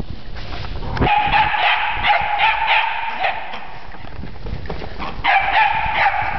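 A puppy yipping and whining in high-pitched runs of quick yelps, one starting about a second in and another about five seconds in.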